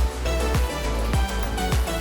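Background music with a steady beat of about two drum strokes a second over held tones.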